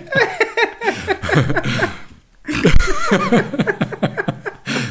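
Men laughing, breaking off for a moment a little past two seconds in, then laughing again.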